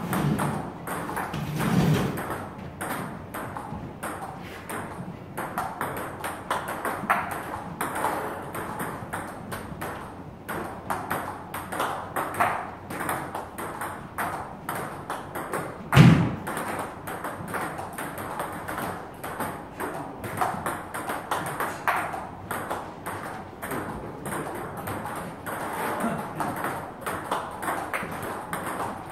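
Table tennis rally: a ping-pong ball clicking back and forth off the bats and the table, one bat faced with long-pimpled rubber (Butterfly Ilius S), in a quick steady rhythm. A single louder thud comes about sixteen seconds in.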